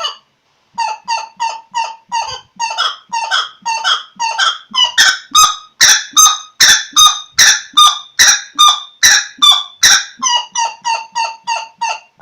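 A bird giving a long series of short, ringing calls, about three a second, after a brief pause near the start; the calls grow louder through the middle and soften again near the end.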